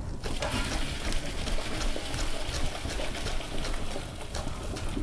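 Pot of boiled lentils being drained into a sink: a steady pour of cooking water splashing.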